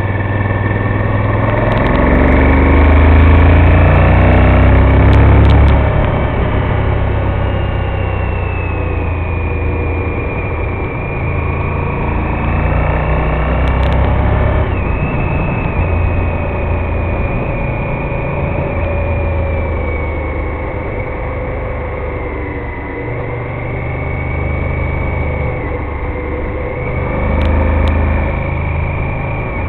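Honda VTR1000F Firestorm's 90-degree V-twin engine heard from an onboard camera while riding. It pulls up in revs and is loudest a couple of seconds in, then runs on at a fairly steady pitch that drifts up and down through the bends, over wind noise.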